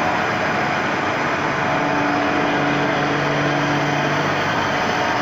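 Refrigeration machinery of a tube ice plant running steadily, a loud even machine noise. A faint steady hum joins it from about two seconds in and fades about four seconds in.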